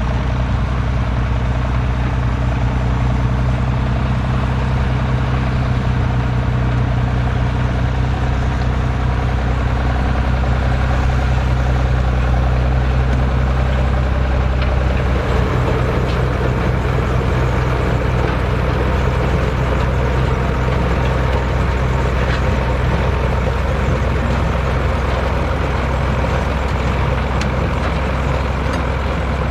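A heavy diesel engine of farm machinery runs steadily with a low, even note, which shifts in tone about halfway through.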